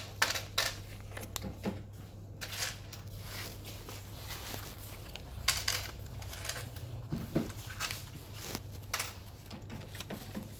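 Scattered clicks and rustles of small objects being handled, most of them in the first few seconds, over a steady low hum.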